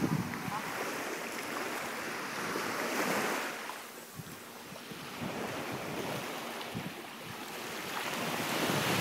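Small waves washing on a sandy beach, with wind buffeting the microphone; the wash swells about three seconds in and builds again near the end.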